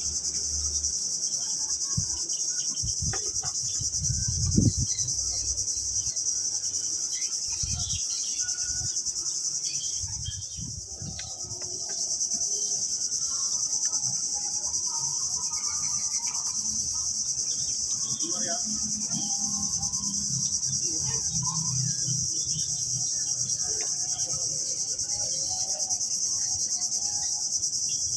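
A steady, high-pitched chorus of insects. It fades about ten seconds in and comes back about two seconds later. A few short knocks fall in the first five seconds, the sharpest about four and a half seconds in.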